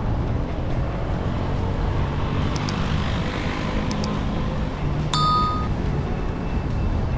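Steady low rumble of a car driving on city streets, engine and road noise. Two pairs of quick mouse-click sound effects come midway, then a short bell chime about five seconds in, from a like-subscribe-notification animation.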